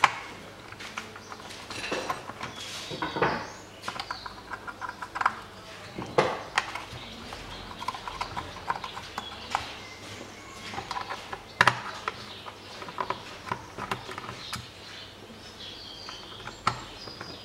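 Small Torx screws being undone from a plastic car door lock module: short runs of quick clicks from the driver, with sharper knocks as the lock housing is handled and set down, and screws dropping onto a cloth.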